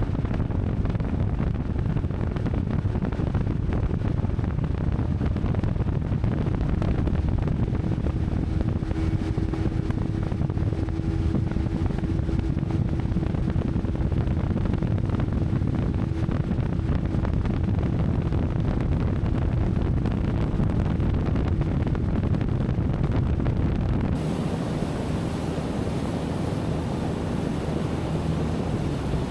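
Small boat's outboard motor running steadily under way, with wind buffeting the microphone. Near the end the low rumble eases off and a hiss takes over.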